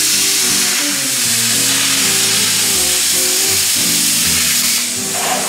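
Plasma cutter cutting through a steel sheet-metal panel: a steady, loud hiss that stops near the end.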